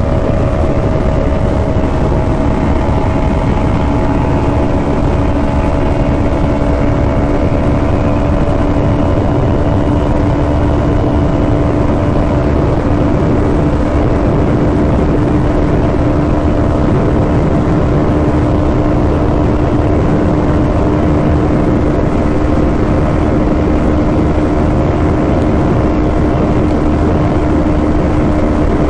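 Sport motorcycle engine held at high revs in sixth gear at about 120 mph, a steady unbroken drone as the bike slowly gains speed. Heavy wind rush runs underneath.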